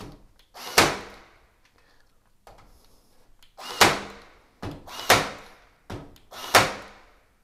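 Cordless battery staple gun firing four times, each a sharp crack with a short ring-off, irregularly spaced, some with a softer click just before. It is misfiring: staples are not feeding, which the user puts down to the magazine spring not working.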